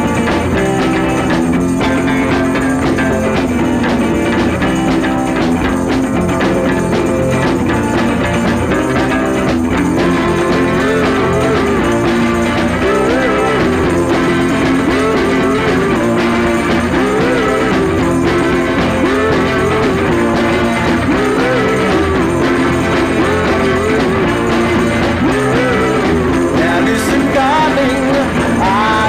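Background music with a steady, dense texture and a wavering melody line, possibly with singing, throughout.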